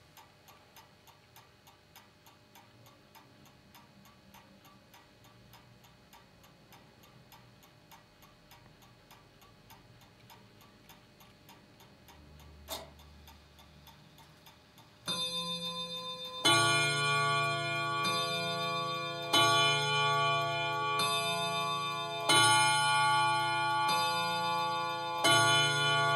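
Old wooden mantel clock ticking steadily, with a single click about two seconds before it starts chiming the hour, about fifteen seconds in. The chime is a run of loud, ringing strikes, one every second and a half or so, each note left to ring on.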